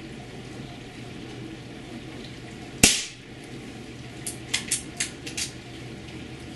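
Air Arms S410 .22 calibre PCP air rifle firing one shot: a single sharp crack about three seconds in. About a second and a half later comes a quick run of lighter clicks.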